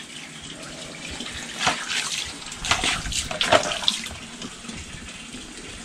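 Water running and splashing as a snakehead fish is washed by hand on a wet concrete floor, with a few sharper splashes in the middle.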